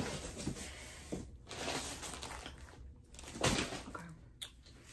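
Rustling and handling noises as clothes are moved about: several soft swishes and a short click near the end.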